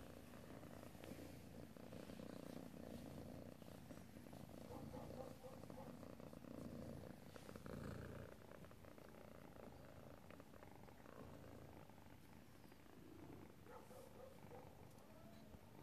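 Kittens purring faintly, a low continuous rumble.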